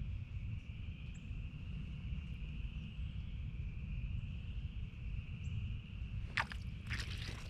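A steady, high-pitched screeching tone that wavers slightly, like a distant alarm, from a source that cannot be told apart as animal or machine. A low rumble runs underneath, and a few rustling knocks come near the end.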